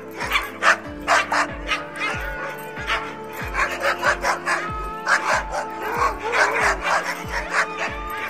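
Dog barking and yipping again and again over background music with a steady beat of about two thumps a second.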